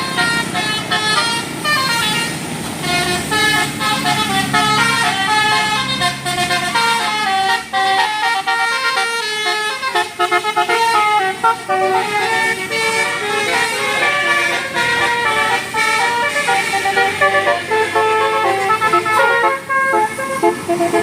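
Basuri 'telolet' multi-tone bus horn playing quick melodies of stepping notes, over the noise of the bus engine; the engine noise drops away about eight seconds in.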